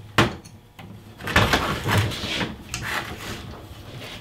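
Handling sounds from multimeter test leads being set on the terminals of a moulded case circuit breaker during a continuity check: a sharp click just after the start, then about a second of scraping and knocking, and a few lighter knocks after.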